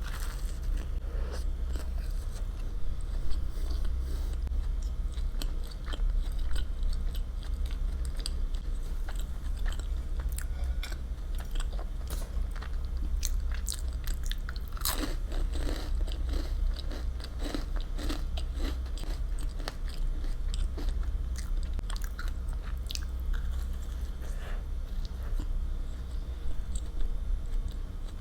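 Close-miked eating: biting and chewing with small wet crackles and clicks of the mouth, busier about halfway through, over a steady low hum.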